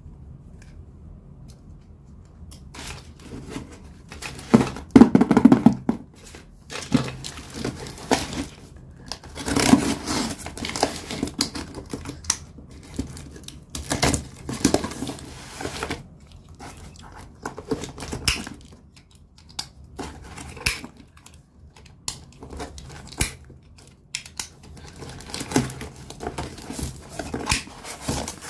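Scissors cutting and scraping through packing tape along a cardboard box's seam, with tape tearing and cardboard rustling in irregular bursts as the flaps are pulled open. The sounds start a few seconds in and are loudest around the fifth second.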